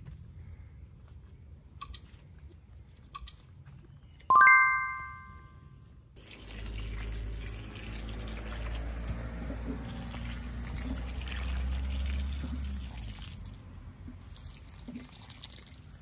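Two light clicks and a ringing metallic clank, then water pouring and splashing steadily for about seven seconds before easing off.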